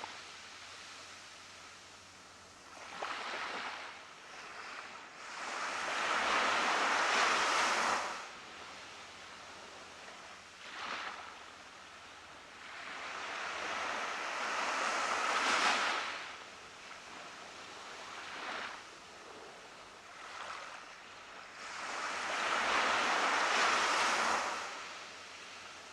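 Small ocean waves breaking and washing up on a beach. There are three big surges of hiss about eight seconds apart, with smaller swells between them.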